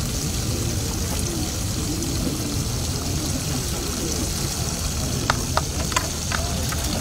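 Water pouring from a watering can onto soil in a steady stream, over a background murmur, with a few sharp clicks in the later part.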